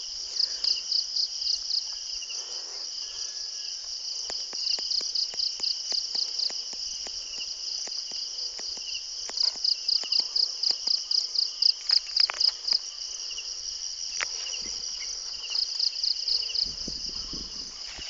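Insects chirping in a steady high chorus, with a louder pulsing trill of about six pulses a second that comes and goes in stretches of one to three seconds.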